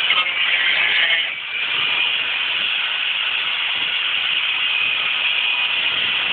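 Angle grinder cutting through the sheet-metal rear panel of a BMW: a steady, high grinding hiss that dips briefly about a second and a half in.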